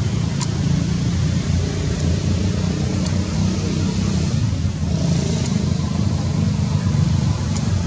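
Steady low motor rumble, like an engine running, with a few faint clicks over it.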